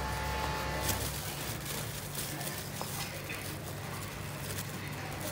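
Thin clear plastic bag crinkling and rustling in irregular bursts as pieces of raw meat are dropped in and the bag is gathered and twisted shut, over a steady low hum.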